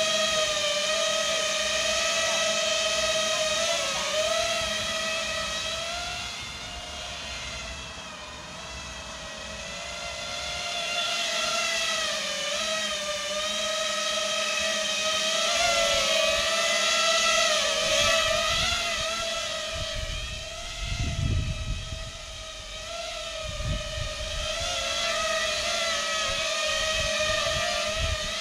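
FPV quadcopter with MT2204 2300 kV motors on a 4S battery, hovering and drifting while carrying a Blackmagic Micro Cinema Camera: a steady propeller whine whose pitch wavers up and down with throttle, dropping in level about a quarter of the way in as it moves farther off. A few low thumps about three-quarters of the way through.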